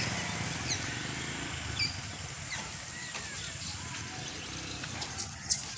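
Outdoor ambience: a steady low rumble of wind on the microphone, with a few faint short high chirps scattered through.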